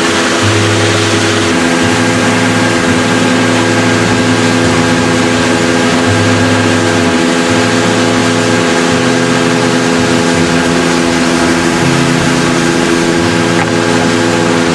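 Outboard motor of a small open boat running steadily under way, an even engine note over a constant hiss of rushing water and wind.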